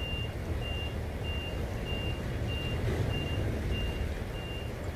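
A high electronic beep repeating steadily, about one and a half beeps a second, over a constant low rumble.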